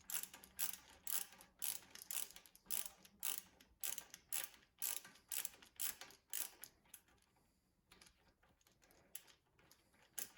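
A ratchet spanner being worked back and forth to undo a fastener that penetrating fluid has freed, its pawl clicking about twice a second for roughly seven seconds, then a few faint clicks as it stops.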